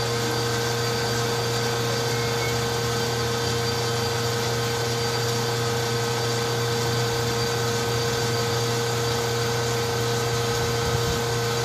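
Propane filling pump running with a steady hum while a BBQ propane tank is being filled.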